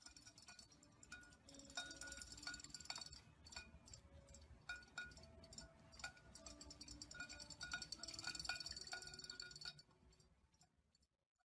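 Faint, sparse music of short, scattered notes with many light clicks and clinks. It stops to silence about ten seconds in.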